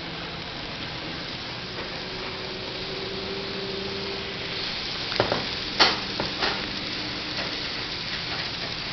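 N-scale model trains running on the layout: a steady hiss of wheels on track with a faint motor hum. A cluster of sharp clicks and knocks comes about five to six seconds in.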